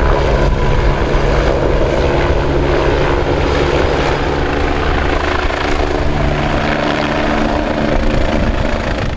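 Agusta police helicopter flying, its turbine and rotor running steadily with a fast, even rotor beat.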